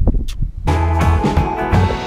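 Wind buffeting the microphone for a moment, then background music starts abruptly about half a second in and carries on.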